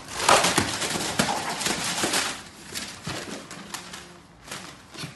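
A small dog's claws scrabbling and tapping against a door as it jumps up at the handle: a quick, irregular run of scratches and knocks that thins out and fades after about three seconds.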